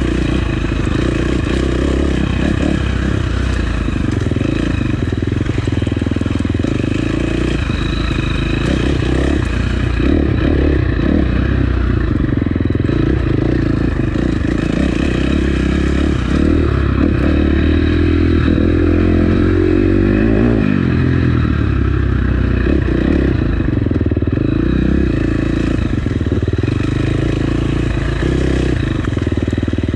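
Dirt bike engine running continuously as it is ridden along rough single track, the throttle rising and easing. Rattles and clatter come from the bike over the uneven ground.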